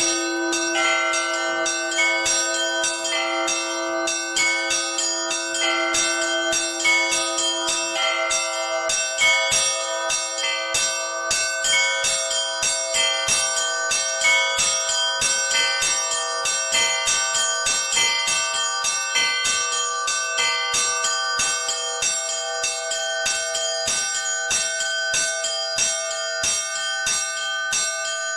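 Orthodox church bells rung by a single bell-ringer: a fast, continuous pattern of small-bell strikes over the steady ringing of larger bells. The deepest bell's tone dies away about nine seconds in, while the higher bells keep on.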